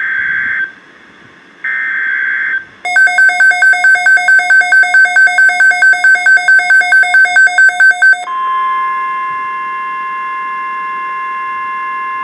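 NOAA Weather Radio Emergency Alert System tones: two short SAME header data bursts about a second apart, then a loud alert beep pulsing about four times a second for about five seconds, then the steady 1050 Hz attention tone.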